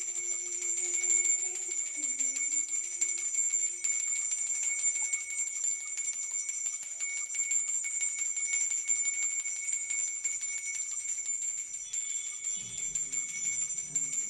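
A bell ringing continuously, with rapid, closely spaced strikes under steady high ringing tones. A faint low tune comes in near the end.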